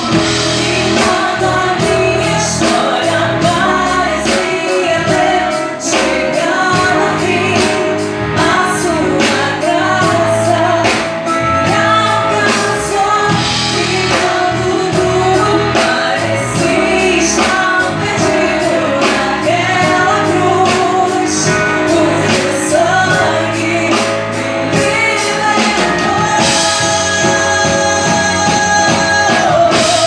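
Live music: a singer sings a melody over band accompaniment with sustained instrument tones and a steady drum beat.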